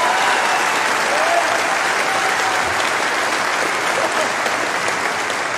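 Large theatre audience applauding and cheering, with a few whoops in the first second or so. The applause holds steady and then begins to ease near the end.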